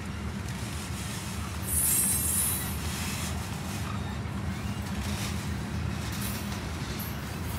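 Freight train hopper cars rolling past, a steady low rumble of wheels on rail. About two seconds in comes a brief, loud high-pitched screech, with fainter high squeaks later on.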